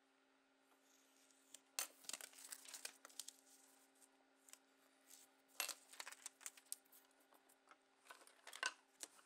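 A small titanium scalpel slicing through sheets of paper, with crisp paper ticks and rustles in three short bursts. The sound is quiet, over a faint steady hum.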